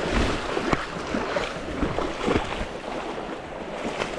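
Stream water rushing, with irregular small splashes and sloshes throughout.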